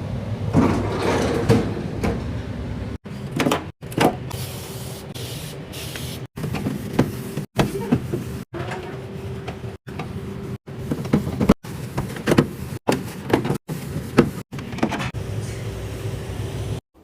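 Restocking handling sounds: packaging rustling and items knocked and set down in a snack drawer or mini fridge. They come in short clips that cut off abruptly one after another.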